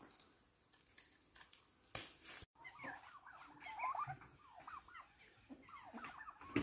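A few sharp crackles and pops from duck roasting on skewers over charcoal. After a short break, a busy chatter of small birds: many short, squeaky chirps tumbling over one another.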